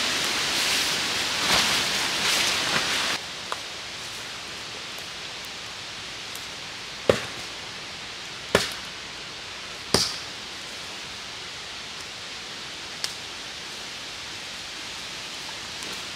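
Heavy tarp fabric rustling and flapping as the shelter is lifted and shaken out. The sound then cuts to quieter woodland background with a few sharp knocks, three of them about a second and a half apart in the middle.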